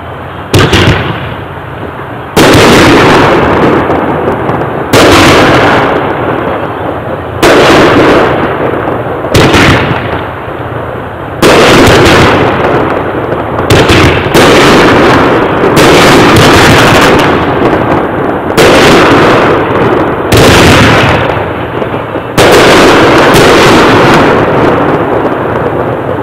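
A 10-shot consumer fireworks cake firing shot after shot, about one every two seconds. Each shot is a sharp bang followed by a long fading tail of burst noise and echo.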